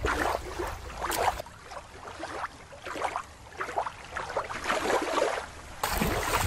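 Water sloshing and lapping, then a hand splashing in shallow water near the end.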